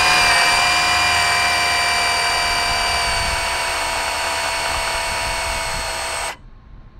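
Brushless 5200 kV electric motor and drivetrain of an RC truck whining at full throttle while the wheel spins at speed. It is a steady, high-pitched whine that sags slightly in pitch and cuts off suddenly about six seconds in.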